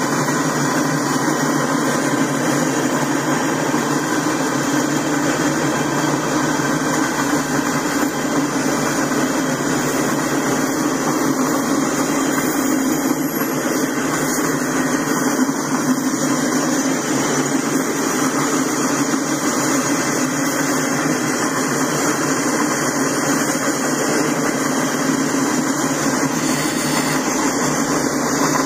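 Steel wheels of a long freight train's covered hoppers and boxcars rolling past on the rails: a loud, steady rolling noise that never lets up.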